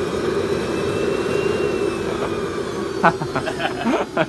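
Twin JetCat model jet turbines running steadily on a static test run: a constant roar with a faint high whine that rises and then falls slightly. Voices come in about three seconds in.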